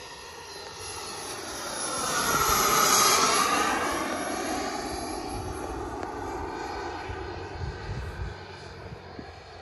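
Turbine jet engine of a radio-controlled F9F Panther model making a fly-by. The whine and rush swell to a peak about three seconds in, then drop in pitch and fade as the jet passes and moves away.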